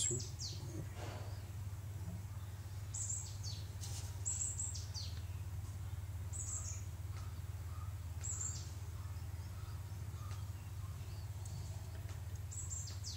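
Short high chirps of a small bird, each falling in pitch, coming singly or in pairs every few seconds, over a steady low hum.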